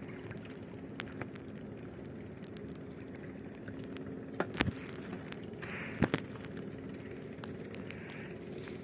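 Small fishing boat's engine running with a steady low hum, with two sharp knocks about halfway through.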